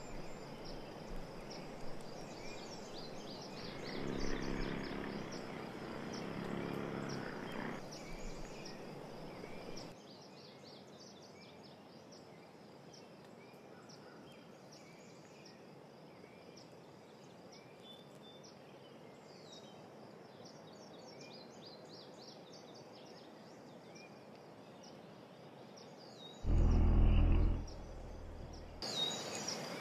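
Meadow ambience: a steady high insect drone with many short high chirps. A bee buzzes close to the microphone a few seconds in, and a louder, lower buzz passes for about two seconds near the end.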